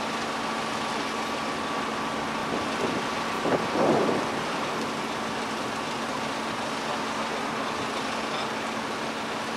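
A steady engine drone with a constant hum, under an even hiss. A short, louder knock and rumble comes about three and a half seconds in.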